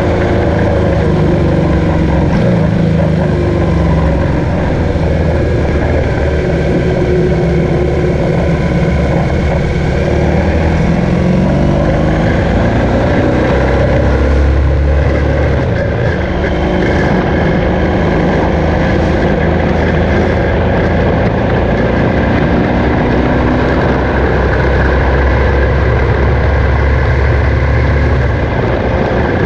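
BMW R1200GS boxer-twin engine running under way, its pitch rising and falling a few times with the throttle, over steady wind and road noise.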